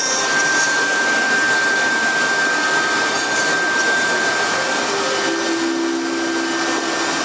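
Two-spindle CNC router running: a steady hissing machine noise with a constant high whine, and a lower hum that comes in about five seconds in.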